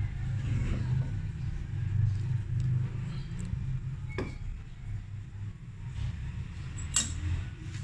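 A steady low rumble with two sharp clicks, about four and seven seconds in: a metal ladle knocking against the karahi and serving dish while scooping milky vermicelli.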